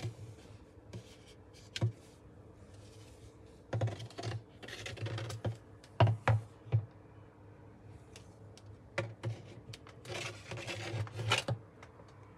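Scrubbing and handling noises during cleaning: irregular scratching and rubbing with several sharp clicks and knocks, in two busier stretches, over a faint steady low hum.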